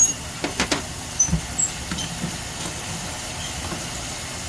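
Steady hiss of running water as cut agate slices are rinsed, with a few light clicks and soft knocks of stone being handled.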